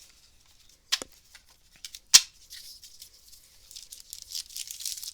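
Trading cards and a foil booster-pack wrapper being handled: two sharp snaps, about a second and two seconds in, then a steady crinkling rustle that grows toward the end.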